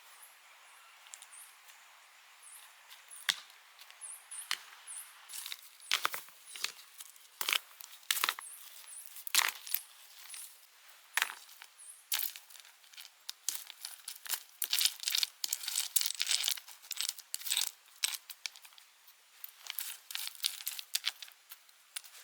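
Crinkling, tearing and small sharp clicks of things being handled, sparse at first and growing busier after a few seconds.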